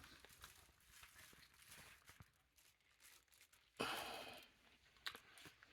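Mostly near silence with faint rustling, broken about four seconds in by a brief louder rustling hiss lasting under a second, and a short tap a second later.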